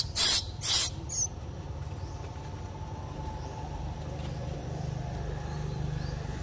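A few quick bursts of dry-leaf rustling in the first second, the last one fainter, then a steady low hum.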